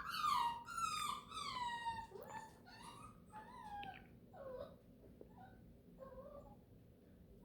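Overtired beagle puppy whining and yowling: a run of high cries, each falling in pitch, that grow quieter and more broken and trail off to faint whimpers about five seconds in.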